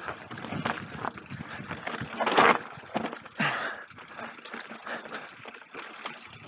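Mountain bike descending a dirt singletrack: tyres rolling over rough ground with the bike rattling and knocking over bumps, and a louder rush of noise about two and a half seconds in.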